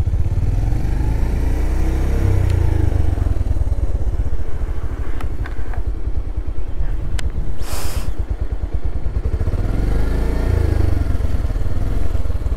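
Bajaj Pulsar motorcycle engine running while being ridden, its note rising and falling as the throttle is opened and closed, with a brief rush of noise about eight seconds in.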